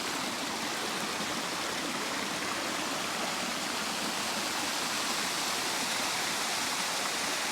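Small waterfall pouring steadily into a rock plunge pool: an even, unbroken rush of falling water.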